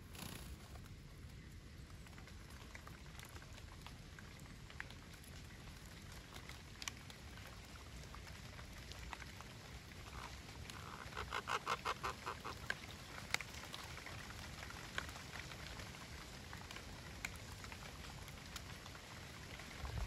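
A parrot calling about halfway through: a fast run of repeated calls, around eight a second, lasting a second and a half to two seconds. Faint scattered clicks and a low steady background noise sit around it.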